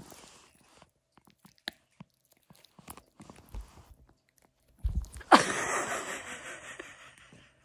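Pomeranian gnawing and chewing a treat, with small scattered clicks and crunches. About five seconds in comes a sudden loud noise that fades over about two seconds.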